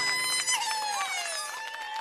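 Closing music of a TV advert fading out: a held chord breaks off about half a second in, and fainter short gliding notes follow as it dies away.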